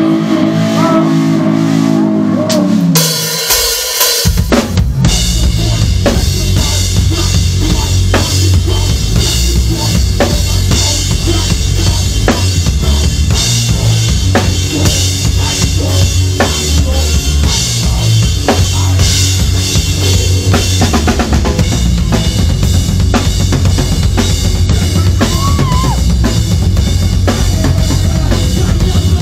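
Live band playing loud: a held pitched note slides down over the first few seconds, then the full band with a pounding drum kit comes in about four seconds in and keeps going.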